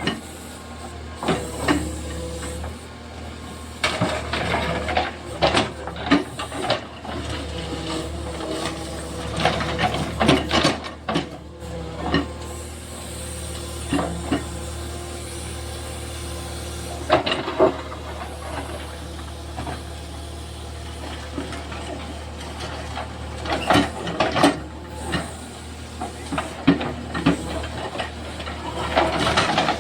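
A JCB backhoe loader's engine running steadily, with irregular knocks and clatter from the digging work throughout.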